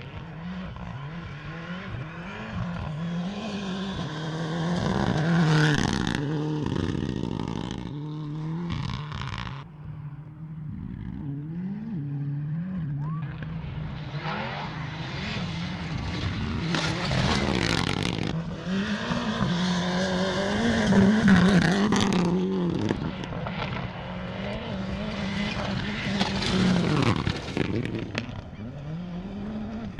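Racing car engines revving and passing by, their pitch rising and falling again and again, loudest a little past two-thirds of the way through.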